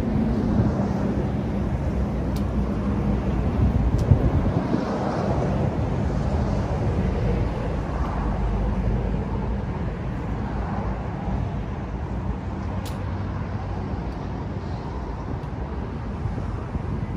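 Steady rumble of passing road traffic, with three sharp clicks.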